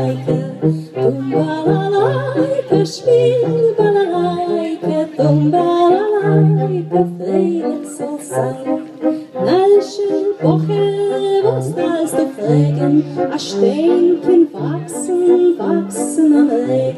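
A woman singing live into a microphone, amplified through a PA, over a musical accompaniment with a bass line moving under the melody.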